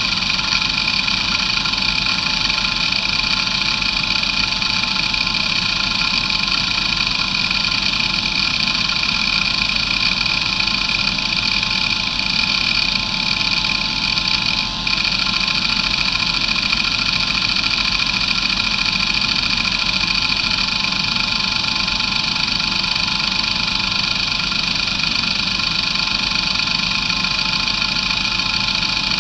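Areal MD2085 2.5-inch hard drive with glass platters spinning with a steady high-pitched whine while its heads seek continuously under the hdmotion test, the seeks only faintly audible beneath the whine. A single brief click about halfway through.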